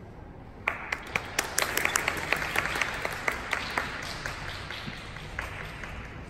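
Audience applauding: separate claps start about a second in, build quickly, then thin out and fade over the next few seconds.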